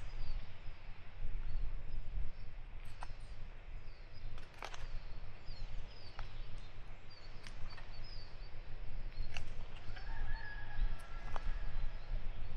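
A hand tool hilling soil around potato plants: irregular strikes and scrapes every second or two, over a steady low rumble, with small birds chirping faintly.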